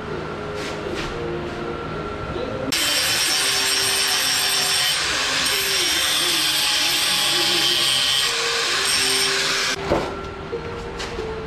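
Handheld cut-off grinder cutting through a motorcycle drive chain: a loud, steady hiss of metal being ground that starts about three seconds in and stops abruptly near the end, followed by a single sharp knock. Background music plays throughout.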